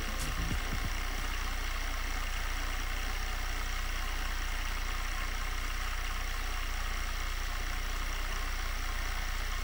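Industrial overlocker (serger) running steadily while stitching fabric: an even motor hum under the whir of the needle and looper mechanism.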